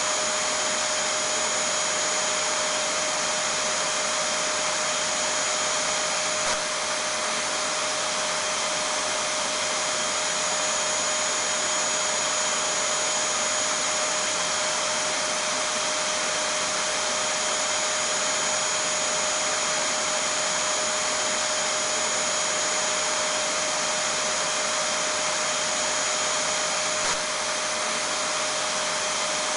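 Vacuum cleaner running continuously: an even whooshing whir with a steady hum through it. There is a faint tick twice, once about six seconds in and once near the end.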